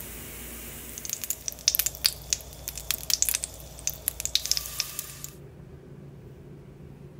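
Oil sizzling in a hot nonstick frying pan as pancake batter is poured in: a steady frying hiss, then sharp crackling and spitting for about four seconds that cuts off suddenly.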